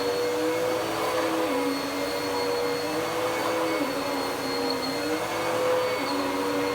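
Dirt Devil PowerMax Pet vacuum cleaner running on carpet, a steady motor whine whose lower tone dips and recovers every second or two.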